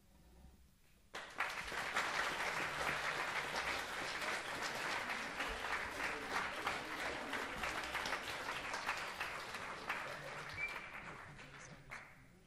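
Audience applauding, breaking out about a second in and slowly dying away near the end.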